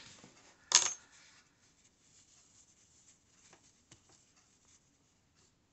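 Hands handling a crocheted piece: one sharp click about a second in, then faint rustling and a couple of light ticks.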